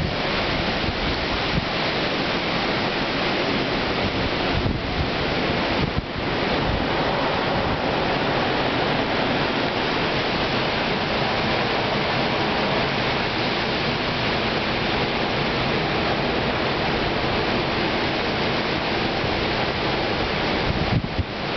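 Hurricane-force wind from Hurricane Sandy rushing steadily, a loud continuous roar with wind buffeting the microphone.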